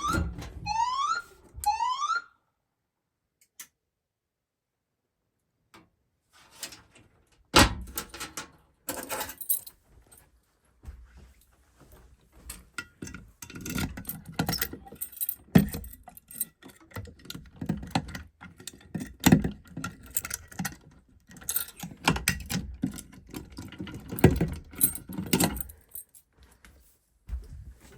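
Fire alarm's electronic whoop tone rising three times, about a second apart, then cutting off as the alarm is silenced. After a few seconds of silence come irregular clicks, knocks and rattles of handling, with a jangle like keys.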